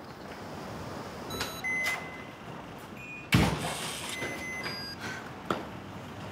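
Electronic beeps from an apartment door's digital lock, then the door shutting with a single thud, followed by another short run of lock beeps.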